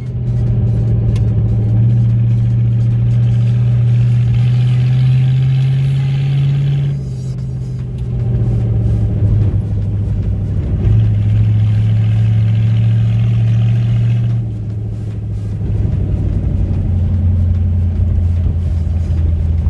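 The Ford Courier pickup's swapped-in engine, heard from inside the cab and exhausting through vertical stacks through the bonnet. It pulls at fairly steady low revs with a deep hum, and the throttle comes on and off every few seconds. The pitch drops near the end as the truck slows.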